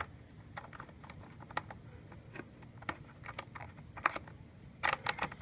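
Ratchet and socket clicking while tightening a car battery terminal clamp: scattered sharp clicks, with a quick run of clicks near the end.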